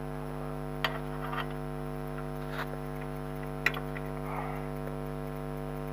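A steady electrical hum runs throughout, with a few short, sharp clicks and taps from parts of a car's anti-roll bar link (rubber bushing and bolt) being handled and fitted. The two loudest clicks come about a second in and just past halfway.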